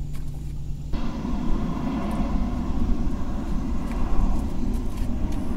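Boat motor running steadily with a low rumble, joined about a second in by a broad rushing noise.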